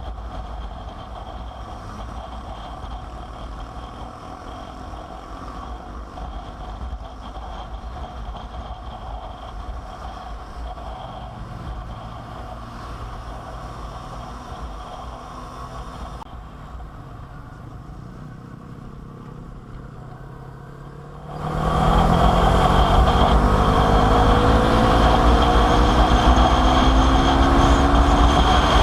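Motorcycle engine running on the road with wind noise. About twenty seconds in it becomes much louder, its pitch rising again and again as it accelerates.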